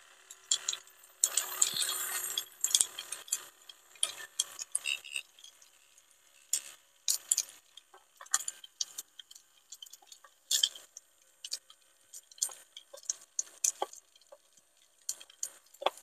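Scattered light clicks and rustles as a homemade plastic-bottle vacuum cleaner is moved over a hard floor, with small paper scraps ticking against the plastic as they are picked up.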